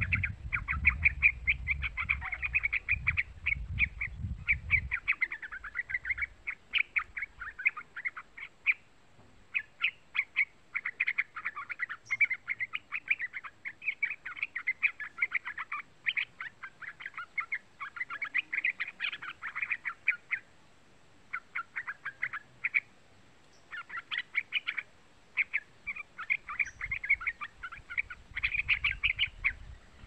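Young yellow-vented bulbul singing: rapid runs of quick chattering notes in bursts of a few seconds, with short pauses between them. A low rumble lies under the first few seconds.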